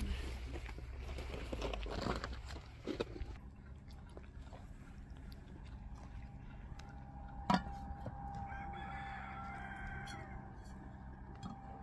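A rooster crows once, about eight seconds in, for a second and a half. A sharp knock sounds just before the crow.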